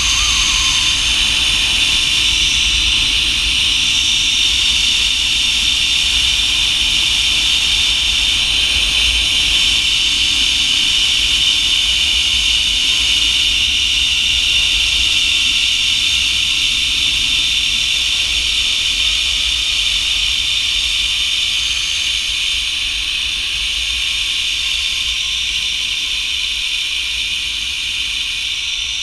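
Zipline trolley pulleys running fast along the steel cable: a steady, loud, high whirring hiss over a low wind rumble on the microphone. It eases slightly over the last several seconds, with a faint falling tone.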